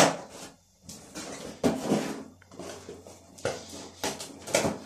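A cardboard shipping box being pulled open by hand: a series of scraping, rustling bursts as flaps and packing tape come away, the loudest at the very start.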